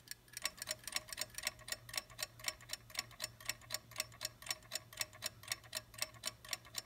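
Ticking of a Lux Mystery Rotary Clock's spring-wound movement, out of its case, with its balance wheel running: rapid, even ticks, about five a second.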